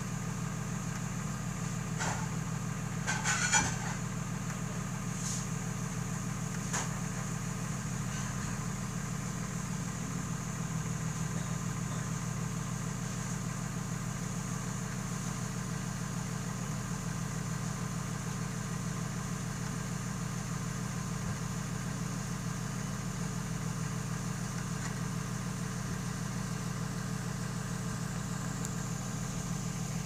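Blue Bird school bus engine idling steadily. A few brief clicks sound in the first several seconds, the loudest about three and a half seconds in.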